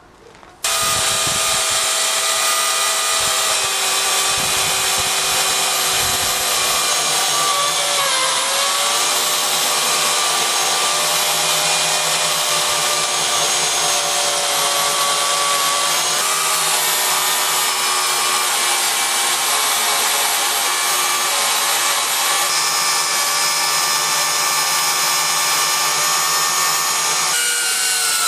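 Electric chainsaw in an Alaskan chainsaw mill, ripping lengthwise through a sweet chestnut log: a steady, loud motor whine over the noise of the chain cutting. It cuts in abruptly about half a second in, and its pitch dips briefly about eight seconds in.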